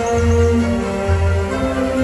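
Music from the castle projection show's soundtrack: long held notes over a low bass note that pulses about once a second.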